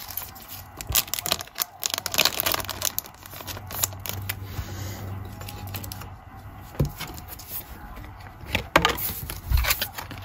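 Thin clear plastic card sleeve crinkling as a trading card is slid into it, dense crackles over the first few seconds. Sparser rustling follows, with a few sharp taps as the sleeved card is handled and set down.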